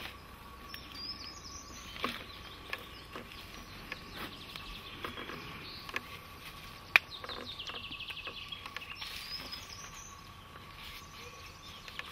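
Wild birds calling outdoors over a faint steady background, with a rapid trill of repeated notes, falling slightly, about seven seconds in. A few sharp clicks and knocks break in, the loudest just before the trill.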